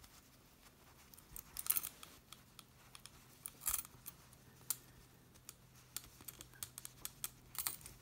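Metal clasp purse frame and its hoop handle clicking and rattling in the hands as a darning needle and yarn are worked through the frame's holes: scattered light clicks with a couple of short rustling scrapes.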